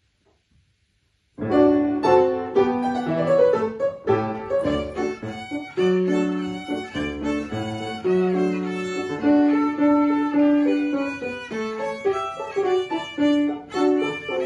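Violin playing a folk-song arrangement, starting about a second and a half in, with a mix of short quick notes and longer held ones.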